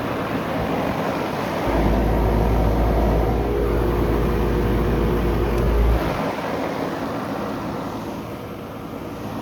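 2012 Carrier Comfort central air conditioner's outdoor unit running, a steady rushing of its condenser fan. From about two seconds in to about six seconds a heavy low rumble of air buffeting the microphone joins it, then cuts off sharply.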